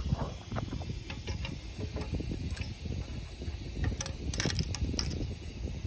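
Irregular metallic clicking and rattling from a mechanism, over a low rumble, with a cluster of sharper clicks about four seconds in.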